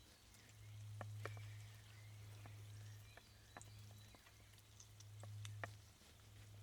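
Faint campfire crackling: about a dozen sparse, sharp pops and ticks over a low, steady hum that swells and fades.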